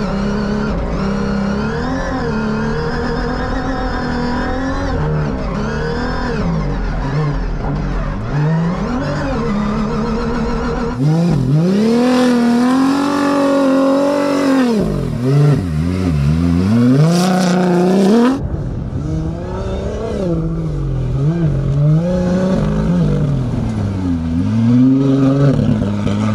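Toyota Hilux rally-raid car's engine revving hard as it drives through sand dunes, its pitch rising and falling again and again with the throttle. The sound changes abruptly twice, about 11 and 18 seconds in, loudest and brightest in the middle stretch.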